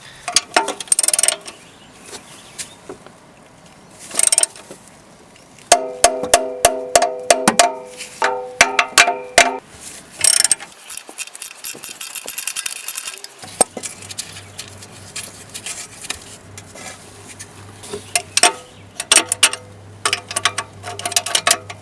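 Ratchet wrench clicking in quick runs, mixed with sharp metallic clinks and knocks of hand tools and fasteners.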